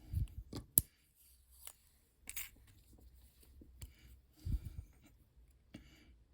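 Small metal clicks and taps as the parts and pins of a disassembled pin-tumbler lock are handled with tweezers; one sharp click under a second in is the loudest, with a few softer clicks and low knocks after it.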